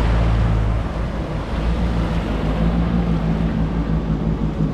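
Yamaha WaveRunner jet ski engine running with a steady low drone, along with water rushing in the wake and wind on the microphone.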